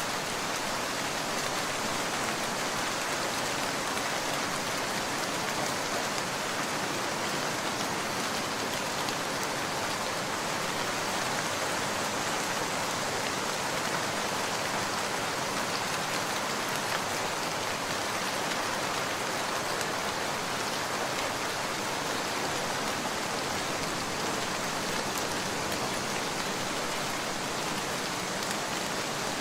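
Steady rain falling as an even, unbroken hiss of drops.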